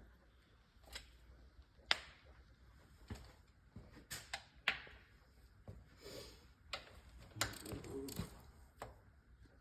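Irregular sharp metallic clicks and knocks, about ten of them, with brief scraping: hand tools and gearbox parts being handled and set down during reassembly of an S-tronic gearbox.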